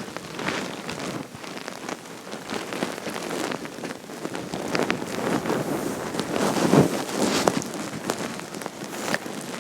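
Hungry stomach growling: a run of wet gurgles and crackles that swells and fades, loudest about seven seconds in.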